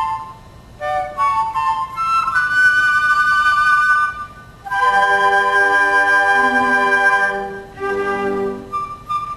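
Flute orchestra playing short melodic phrases with brief breaks between them, then a long held chord with low voices underneath, followed by another short phrase.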